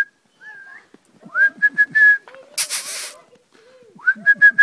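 A person whistling the same short call three times, each a quick rising note into a high held tone broken into rapid pips, as a call to the springer spaniels. Between the second and third call comes a brief rush of hiss.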